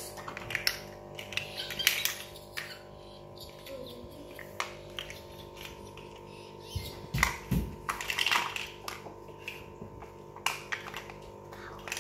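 Large plastic interlocking toy bricks clicking and clattering as they are handled, snapped together and set down on a hard tiled floor, in irregular clicks with a heavier knock about seven seconds in. A steady low hum runs underneath.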